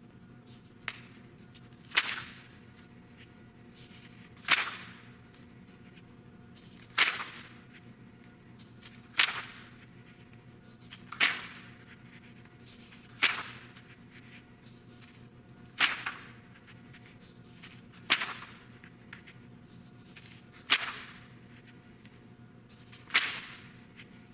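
Magazine pages turned one by one, each a short crisp flip with a brief rustle as the page falls, about every two and a half seconds, ten in all.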